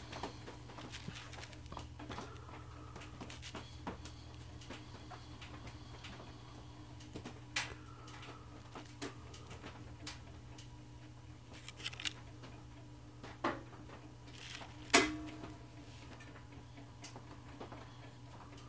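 Quiet handling sounds of a thin metal pick working 5-minute epoxy over a cork riser on a brass saxophone key: faint scrapes and a scattering of small clicks, the sharpest about fifteen seconds in, over a steady low hum.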